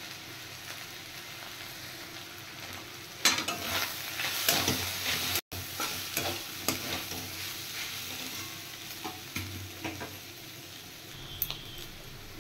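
Potato, onion and chopped chicken filling sizzling in oil in a metal kadai while a flat spatula stirs and scrapes it against the pan. The scraping is strongest between about three and seven seconds in, with a steady sizzle underneath.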